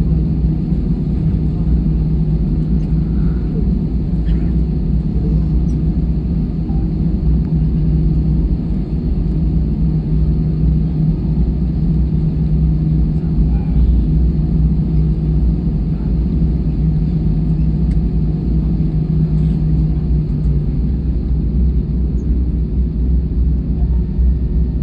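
Steady cabin rumble of an Airbus A320-214 on the ground after landing, with a constant low hum.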